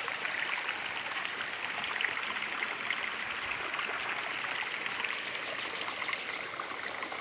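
Water running steadily over rocks in a stream, with a continuous trickling and splashing.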